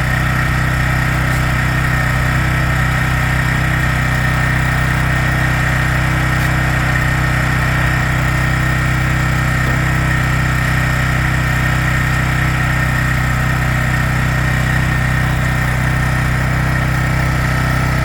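Small gas engine of a pressure washer running steadily at an even speed after a hard start.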